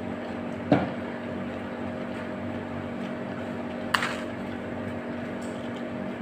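Steady mechanical room hum with a few steady tones, broken twice by a short, sharp knock, the first under a second in and the second about four seconds in.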